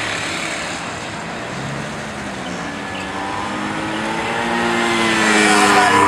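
A car engine approaching on the road, growing louder toward the end, over a steady outdoor noise.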